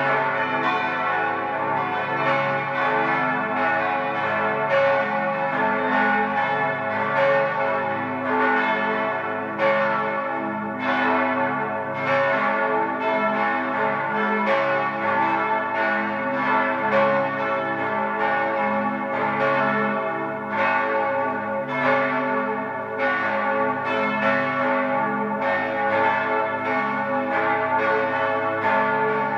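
Five swinging church bells, tuned a°, c♯', e', f♯' and a', ringing together in a full peal. Their strokes overlap in an irregular stream, several strikes a second, each one ringing on under the next.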